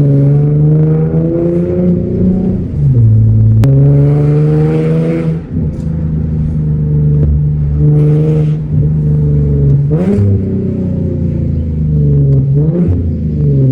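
Infiniti G37's 3.7-litre V6 running through an ISR Y-pipe and ISR single exhaust with no resonator, driven with the exhaust note rising and falling several times as the throttle opens and closes. It has a little bit of rasp.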